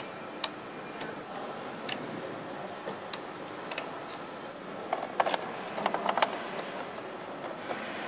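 Motorcycle assembly-line hum with scattered sharp clicks and clacks of parts and hand tools, several in quick succession about five to six seconds in.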